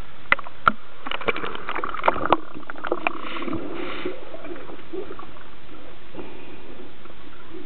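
Water splashing and knocking at the surface of a deep diving tank for the first couple of seconds, then the muffled hiss of being underwater, with a couple of bubbly gurgles about three to four seconds in.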